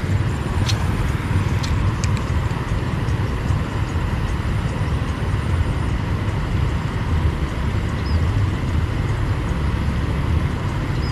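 Wind buffeting an open-air action-camera microphone: a steady low rumble, with a few light clicks in the first two seconds.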